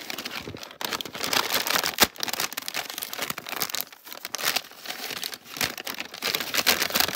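Brown paper bag crinkling and rustling as its folded top is pulled open by hand, with one sharp paper snap about two seconds in.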